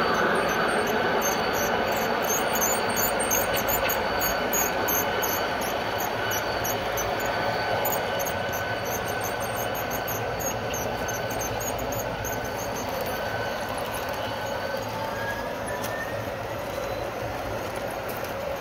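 G-scale model freight train rolling past on garden railway track: a steady rumble of wheels on rail with a thin high wheel squeal, growing a little quieter as the cars go by. Near the end the squeal rises in pitch.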